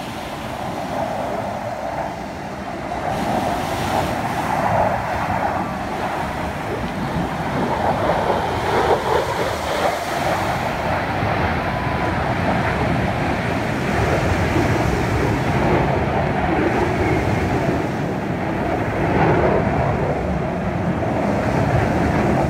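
Distant military jet engines passing overhead, a steady rushing rumble that grows gradually louder.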